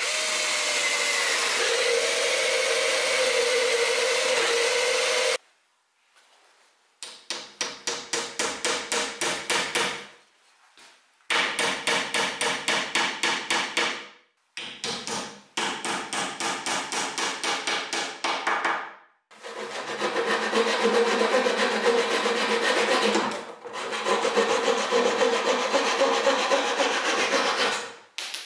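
A cordless drill bores into a wooden chair part, running steadily with a whine for about five seconds. After a short pause, a small hammer taps a tool in the hole in three runs of quick light blows, several a second. It is followed by a hand saw cutting steadily across a wooden dowel to trim it flush.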